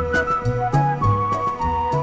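Instrumental music accompanying a silent film: a melody of held notes over a bass line that changes note about twice a second, with light regular percussion.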